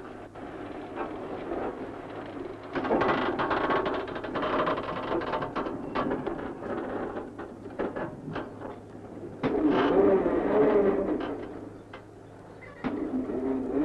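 Construction-site machinery from tower cranes hoisting concrete panels: rattling and clanking with many sharp knocks, rising to louder stretches about three seconds in and again near ten seconds.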